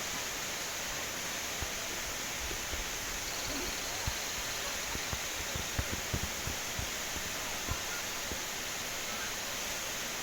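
Waterfall: a steady rush of falling water. A few soft low thumps come in the middle.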